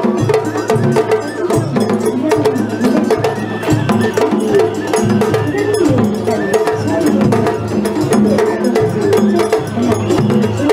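Traditional Japanese festival float music (matsuri bayashi) with drums and percussion in a steady, dense rhythm.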